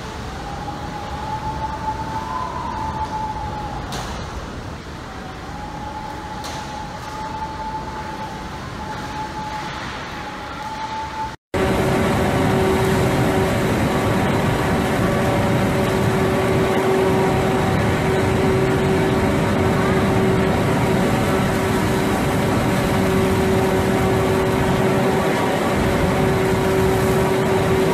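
Hurricane wind. First comes a whistling tone that wavers slightly in pitch, with a few clicks. After a sudden cut, there is a louder, even rush of wind and driving rain with a steady tone underneath.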